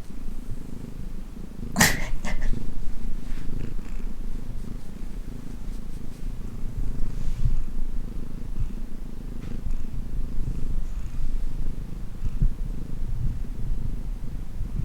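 Domestic cat purring steadily and close up, a low continuous rumble. A brief sharp noise cuts across it about two seconds in.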